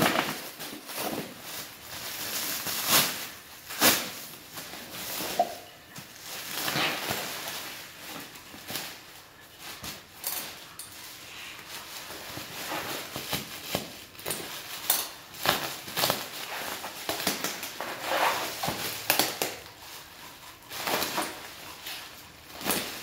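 Clear plastic stretch film and bubble wrap being pulled off, torn and crumpled by hand: an irregular run of crinkling and rustling, with scissors cutting into the wrapping.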